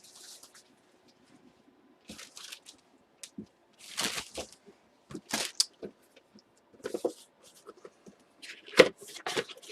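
Plastic bags rustling and crinkling in short, irregular bursts as they are handled, with a few sharp snaps; the loudest snap comes near the end.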